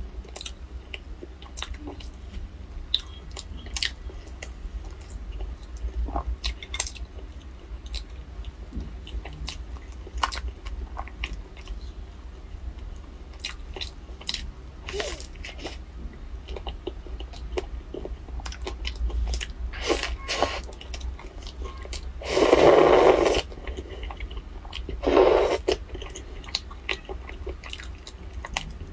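Close-miked eating of crab: sharp clicks and crunches of teeth biting on the shell, with wet chewing between them. Two longer, louder bursts of noise come about three quarters of the way through, under a steady low hum.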